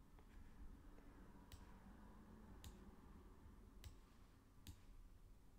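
Near silence with about four faint computer mouse clicks, spaced a second or so apart.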